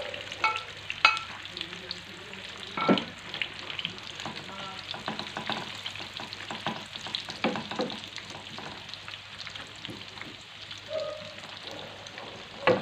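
Boiled baby potatoes sizzling in hot oil in a frying pan as they are tipped in and turned with a slotted spatula. Occasional knocks and scrapes of the spatula and potatoes in the pan, the loudest about three seconds in and near the end.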